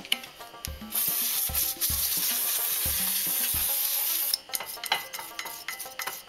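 Aerosol brake cleaner sprayed onto a car's rear brake caliper bracket: a steady hiss for about three seconds, then short scratching strokes as a brush scrubs the bracket.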